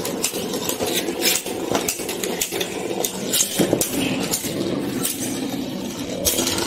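Metal Beyblade spinning tops spinning on a plastic chair seat with a steady rasping hum, clashing into each other with repeated sharp metallic clinks.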